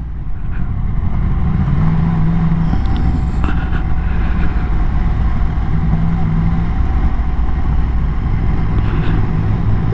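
Motorcycle engine running steadily under way, with heavy wind and road noise as heard from the moving bike.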